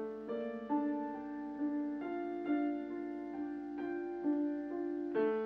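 Background music: a slow, gentle piano melody, with a new note struck about every half second and each note ringing on.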